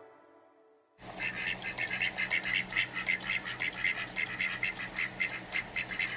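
Music fading out, then after about a second ducks quacking in a fast, even run of short quacks, about five a second.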